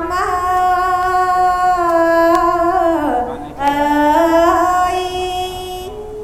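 Khmer smot, Buddhist verse chanted by a single unaccompanied voice in long held, wavering notes. About three seconds in the pitch slides down and breaks briefly, then the next line picks up and is held.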